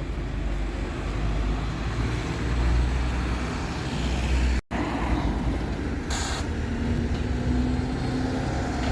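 Bus engine running close by amid road traffic, with a short hiss about six seconds in. The sound cuts out completely for a moment a little past halfway.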